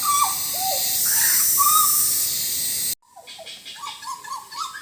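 Hooded butcherbird singing: a run of loud, fluting whistled notes, each sliding up or down in pitch, over a steady high hiss. About three seconds in the sound cuts off abruptly, and the song carries on quieter with quick rising notes.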